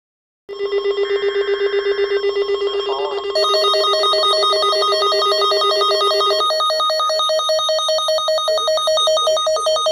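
Electronic alert tone: a rapidly pulsing, ringing sound made of several layered pitches, which shifts to a different, higher set of pitches about three seconds in and changes again about six and a half seconds in.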